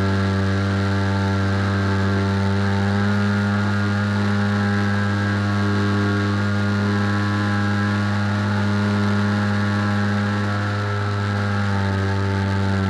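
Skywalker X8 RC aircraft's motor and propeller running at a steady pitch, heard from a camera on the aircraft's nose, with a hiss of rushing air over it.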